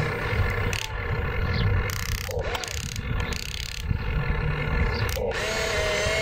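Small electric gear motors of a radio-controlled excavator whining and rattling as its arm and bucket move, with short rises and falls in pitch as the motors start and stop.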